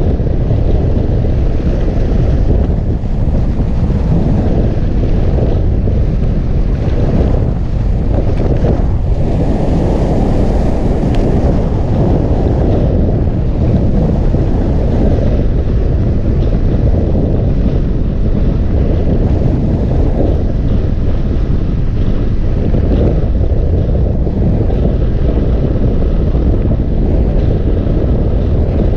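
Loud, steady wind rush and buffeting on a camera microphone mounted on a hang glider in flight, a dense low rumble from the airflow past the glider.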